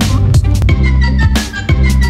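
Electronic background music with heavy bass, a steady drum beat and a synth melody stepping downward.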